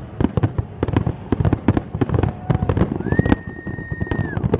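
Aerial fireworks display going off in a rapid, dense run of bangs and crackles. A high, steady whistle starts about three seconds in and lasts just over a second.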